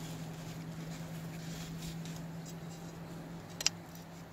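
Browning Outdoorsman folding shovel handled as its blade is swung from the straight position to the hoe position: light scraping and rubbing of the plastic and metal parts, with one sharp click about three and a half seconds in.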